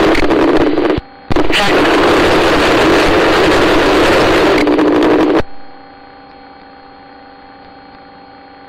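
Loud steady rushing noise over a helicopter's radio channel, with no words. It breaks off for a moment about a second in, then cuts out about five and a half seconds in to a faint steady hum.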